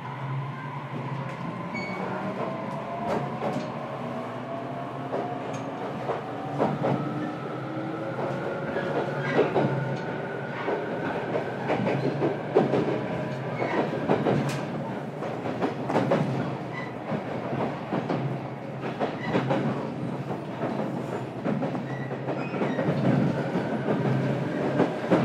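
Onboard running sound of a JR Kyushu 817 series electric train, in motor car KuMoHa 817-518: a motor whine climbs in pitch through the first half as the train picks up speed, then holds, while the wheels click irregularly over rail joints.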